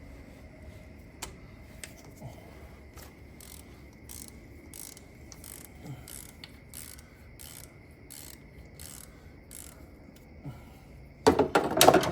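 Hand socket ratchet clicking as it is swung back and forth on a bolt, about two clicks a second, then a louder burst of fast ratcheting clatter near the end.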